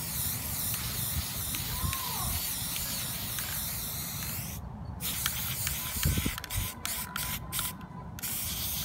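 Aerosol spray paint can spraying: one long continuous hiss for about four and a half seconds, then a string of short bursts.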